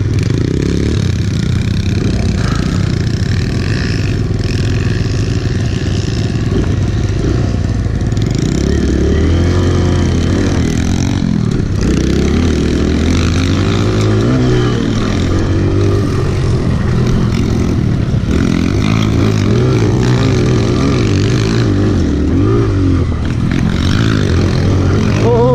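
Kawasaki KLX mini dirt bike's small four-stroke single engine heard on board while riding, revving up and falling back again and again, its pitch rising and dropping many times.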